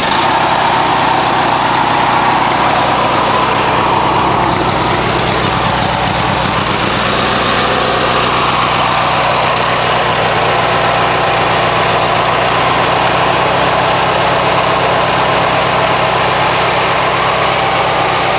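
Briggs & Stratton 16 hp opposed-twin lawn tractor engine running steadily at idle, freshly started now that a new ignition coil has cured its no-spark fault.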